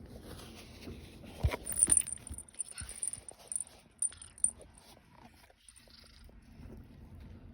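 A cat eating from a plate: irregular small chewing and smacking clicks, with a couple of sharper knocks about a second and a half in.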